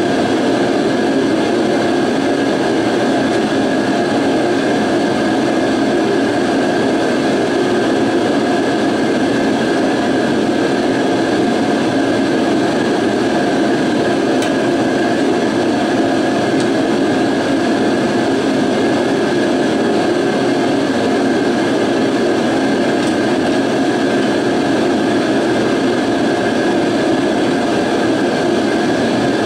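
Steady, loud drone of a shop heater running, with a thin steady high tone over it.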